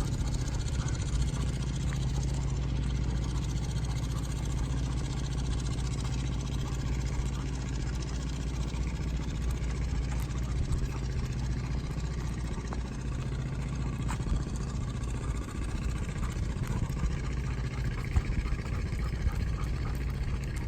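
A steady low mechanical hum, like an engine running, with a few faint clicks.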